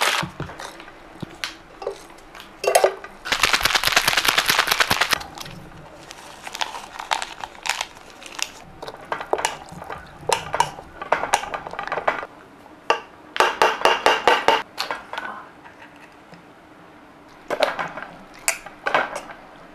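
Dishes and metal utensils being handled: a series of sharp clicks, knocks and clinks, with a dense rattling clatter lasting about two seconds a few seconds in and further quick clusters near the middle and near the end.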